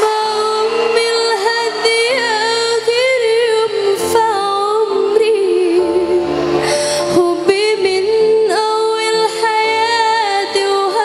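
Woman singing a slow song into a handheld microphone, long held notes that waver and turn in pitch, over soft sustained accompaniment chords.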